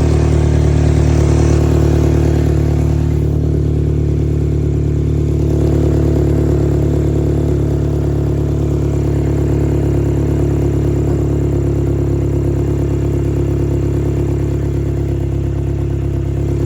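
2013 Mini's engine running steadily with an exhaust leak that makes it sound like an open, straight pipe. The owner suspects exhaust parts or a clamp left loose after an oil pump seal replacement.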